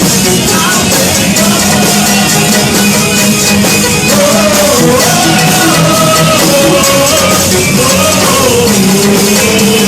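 Live worship band playing with amplified singing, loud and steady, with a sung melody over drums and guitars.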